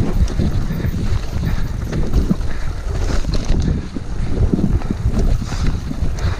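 Wind rushing over the camera microphone on a fast mountain-bike descent, with the tyres rumbling over the dirt trail and irregular knocks and rattles from the bike over bumps.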